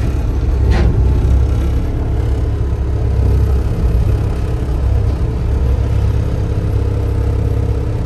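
Komatsu PC60-7 excavator's 4D95LE diesel engine running steadily under hydraulic load as the boom is worked, heard from inside the cab. A brief high squeak cuts across it about a second in.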